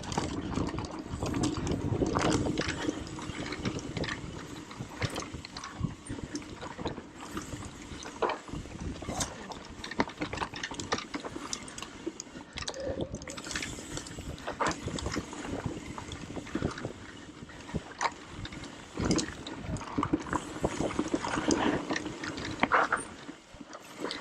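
Mountain bike descending a loose dirt trail: steady tyre and riding noise with many sharp clicks and rattles from the bike over bumps.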